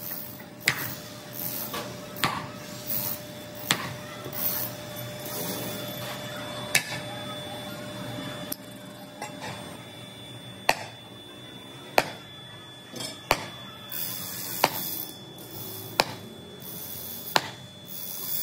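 Sledgehammer blows on cast iron scrap, breaking the curved pieces apart: about ten sharp metallic strikes. They are spaced unevenly at first, then come about every second and a half.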